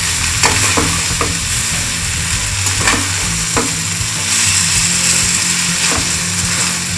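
Egg and vegetable noodles sizzling in a non-stick frying pan as a spatula stirs and tosses them, with a few sharp clicks of the spatula against the pan.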